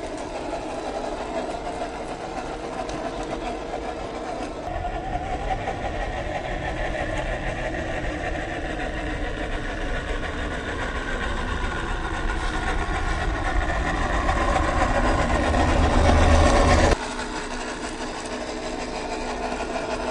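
Electric motor and gear drivetrain of a 1/12-scale MN128 RC Jeep whining steadily as it crawls over dirt and gravel. It grows louder over several seconds, then drops off suddenly about 17 seconds in.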